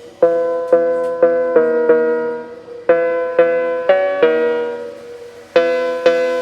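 Background music: a piano or electric-piano melody of repeated struck notes, played in short phrases.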